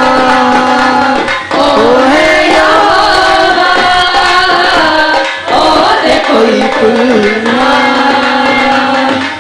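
Live amplified Christian worship song: voices singing long, gliding held notes over steady hand-drum rhythm, with two short breaks between phrases.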